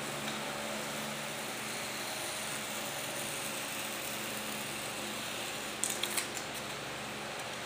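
Steady hiss with a faint electrical hum, and about six seconds in a brief cluster of scratchy scrapes and clicks as a flat bar is worked against a blue foam bulkhead ring.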